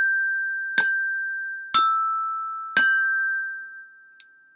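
Two resonator bells, G and E, struck with a mallet four times about a second apart in the pattern G, G, E, G, each note ringing on and slowly fading out after the last.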